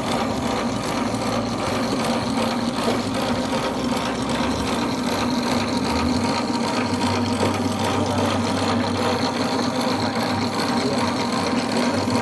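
Hardcover glue machine running with a steady mechanical hum; its low tone shifts about five seconds in.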